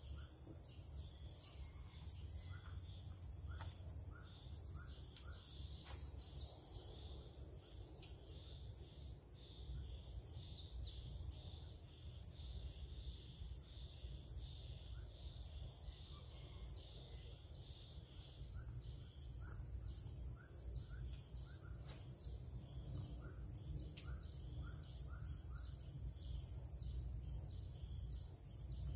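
Ambient insect chorus: a continuous high-pitched steady drone of crickets or cicadas, with short chirps repeated in runs of four or five every several seconds, over a low rumble.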